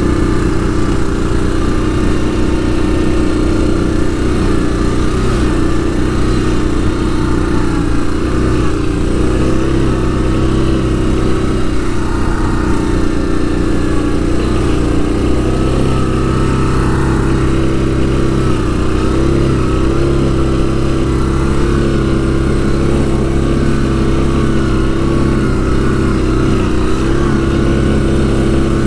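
Yamaha Grizzly ATV's single-cylinder four-stroke engine running steadily at trail-riding speed, its pitch rising and falling only slightly.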